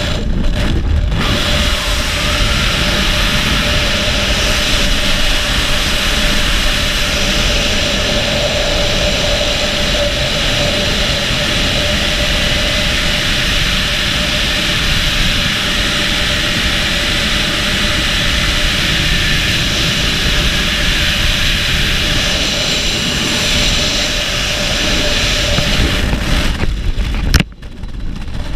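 Freefall wind rushing loudly and steadily over a helmet camera's microphone, with a faint steady whistle. Near the end there is one sharp sound, and the wind noise drops off suddenly as the parachute opens.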